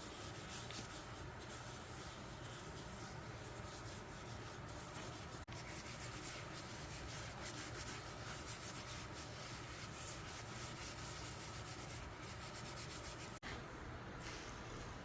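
A small wooden mallet being rubbed down by hand with an abrasive, in quick back-and-forth strokes, broken by two brief dropouts.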